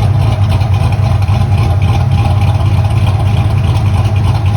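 A steady, loud low hum of a running motor or engine, unchanging throughout.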